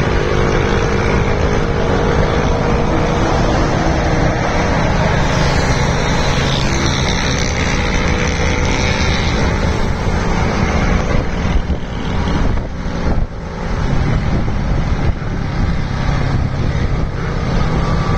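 Engine of a moving road vehicle running steadily, with rushing road and air noise, heard from the vehicle itself. Past the middle it eases off for a couple of seconds, then picks up again.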